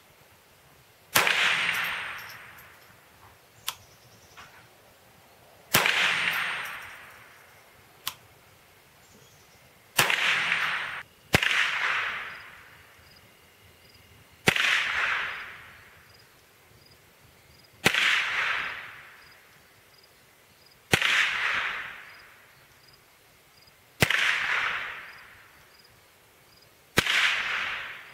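Ruger SR-22 .22 LR semi-automatic rifle fired in slow, aimed single shots, nine in all a few seconds apart. Each is a sharp crack followed by a long echoing tail. Two fainter sharp pops come between the first shots.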